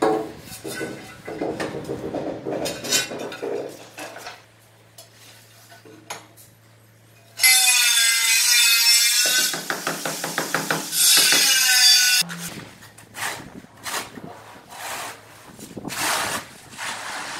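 Notched trowel scraping and combing tile adhesive on the floor in repeated short strokes. In the middle, a much louder high-pitched sound with a wavering pitch cuts in suddenly for about five seconds and stops just as suddenly.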